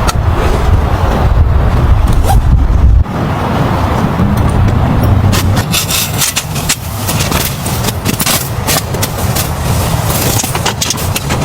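Low rumble of a car in motion that cuts off abruptly about three seconds in, followed by a run of scraping and knocking sounds.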